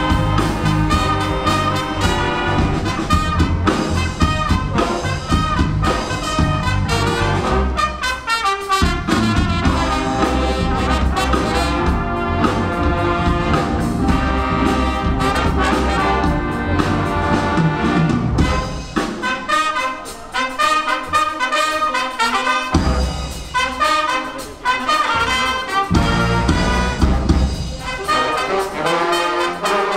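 Big band playing jazz live, with the trumpets and trombones of the brass section to the fore. The bass drops out for a few seconds twice, about twenty seconds in and again near the end, leaving the upper horns on their own.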